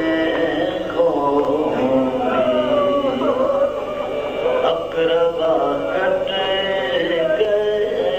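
Urdu marsiya (mourning elegy) chanted by a single voice in a slow, melodic style, with long held, wavering notes and no instruments.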